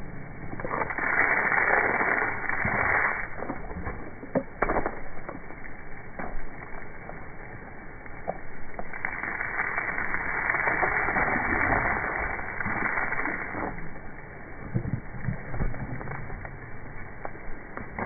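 Garden hose spray hissing and splattering, loud in two long stretches: about a second in and again from about nine to fourteen seconds. Scattered sharp clicks and knocks and a few dull thumps come between.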